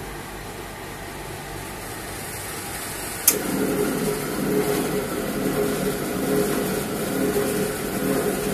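Wave soldering machine running with a steady mechanical hum. A little over three seconds in there is a sharp click, and a louder motor hum with a regular pulsing starts and runs on.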